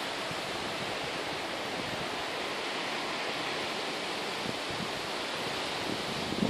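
Steady, even rushing outdoor noise of wind and water by a choppy fjord shore, with no distinct events.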